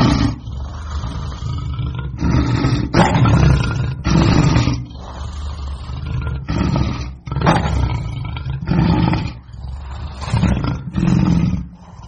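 Lion roaring angrily in a long run of loud, rough bursts, about one a second, that stops abruptly near the end.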